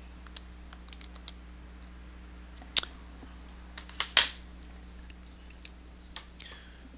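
Sharp, separate clicks of keys being pressed, about a dozen of them scattered over the first four seconds as a calculation is keyed in, over a low steady electrical hum. Near the end, a pen starts scratching on paper.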